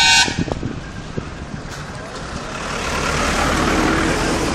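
A goods truck passing close by on the road, its engine and tyre noise building up over the last couple of seconds. At the very start a brief loud beep-like tone sounds.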